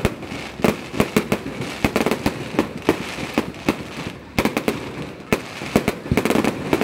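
Aerial fireworks launching and bursting: many sharp bangs in quick, irregular succession.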